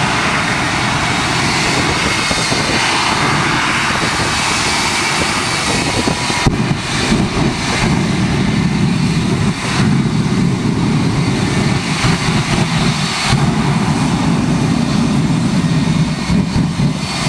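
Shockwave jet truck's three J34 jet engines running on afterburner: a loud, steady roar with one sharp crack about six and a half seconds in.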